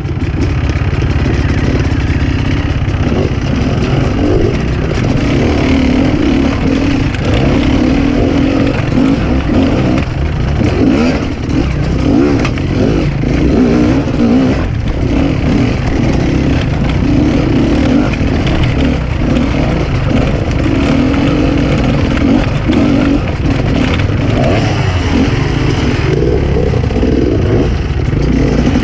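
Enduro dirt bike engine running under load, its revs rising and falling over and over as the bike is ridden over rough ground.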